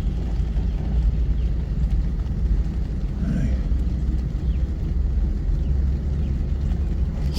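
Steady low rumble of wind buffeting the microphone outdoors in rainy weather.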